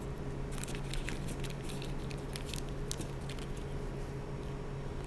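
A dab of butter starting to melt in a pan on medium heat, giving off irregular soft crackles and ticks over a steady low hum.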